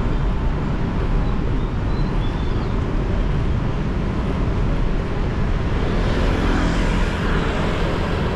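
Road noise from riding a motorcycle in city traffic: a steady low rumble of wind on the microphone, engine and tyres, with the hiss of passing traffic growing louder from about six seconds in.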